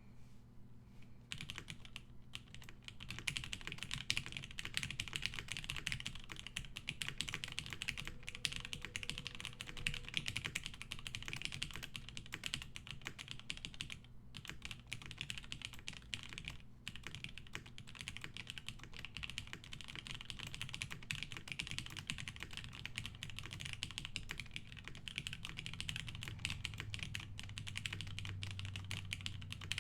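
Continuous typing on a mechanical keyboard with Cherry MX Black linear switches, about two years broken in: a fast, dense run of keystrokes that starts about a second in, with a couple of brief pauses.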